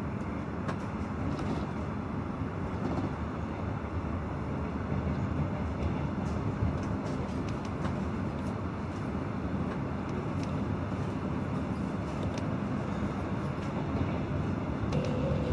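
Regional passenger train running between stations, heard from inside the carriage: a steady rumble of wheels on rails with faint scattered clicks. A faint thin whine begins near the end.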